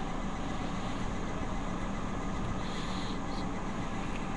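Steady low rumbling background noise, even throughout, with a faint brief higher sound or two about three seconds in.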